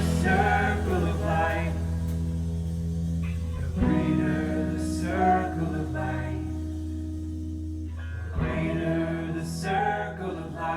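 Live band music: strummed guitar chords ring out in three phrases over long held bass notes, with singing voices.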